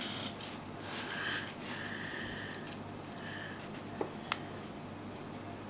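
Quiet workbench handling noise: two small sharp clicks a little after four seconds in, over a steady low hum and soft rustling.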